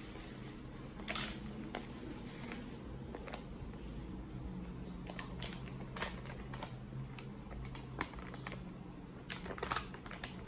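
Plastic carrier bag rustling, then brown paper food wrapping crinkling and crackling as it is pulled open, in short irregular crackles over a low steady hum.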